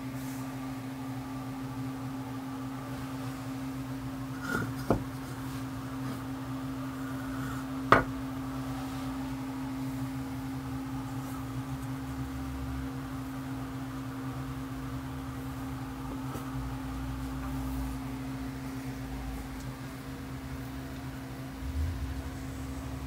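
Steady machine hum in a workshop, with a few sharp knocks over it; the loudest knock comes about eight seconds in.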